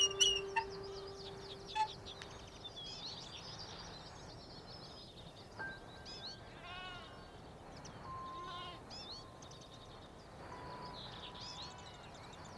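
Quiet room ambience with birds chirping and whistling outside, and a quavering animal call heard twice near the middle. A few clicks of cutlery on plates come right at the start.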